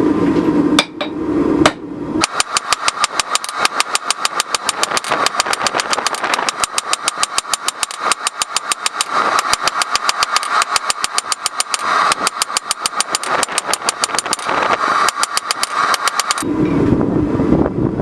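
Rapid, even hammer blows on wrought iron being flattened, about six a second, from about two seconds in until near the end. A steady roar is heard before and after the hammering.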